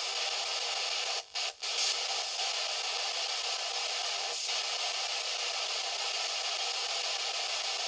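S-Box spirit box, a pocket radio sweeping through FM stations, giving a steady hiss of radio static. The static drops out twice, briefly, a little over a second in.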